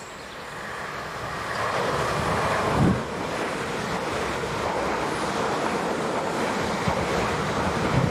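Siemens Desiro electric multiple unit passing through at speed: a rush of wheels and air that builds as it comes in, then stays loud and steady. A few low thuds come from the wheels over the rails, one about three seconds in and another near the end.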